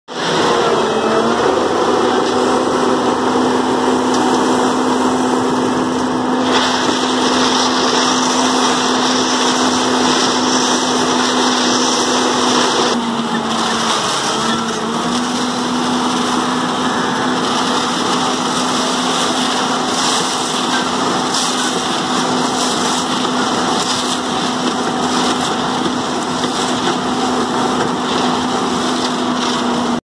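Ajax Fiori Argo 2000 self-loading concrete mixer's diesel engine running steadily at high revs while its hydraulic loader bucket scoops aggregate and lifts. The engine note dips briefly about halfway through, then recovers.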